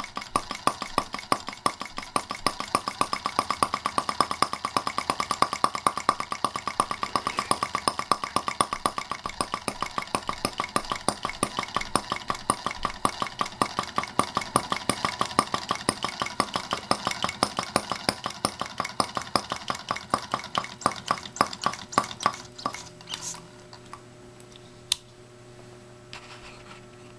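Miniature single-cylinder gasoline model engine, a Stirlingkit Benz R18, running with a fast, even firing beat and light metallic clatter, then dying out about 22 seconds in, leaving a few clicks and a faint hum.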